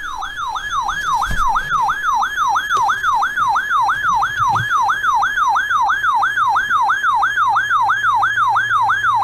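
Weather radio receiver's alert alarm going off, signalling that a new warning has been received: a loud electronic siren tone sweeping down and back up about three times a second, repeating steadily.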